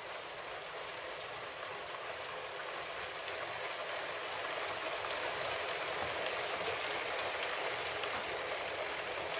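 Long Lego City passenger train (set 60197) running on plastic Lego track: a steady rattling of many small plastic wheels rolling over the track joints, growing louder as the train comes close.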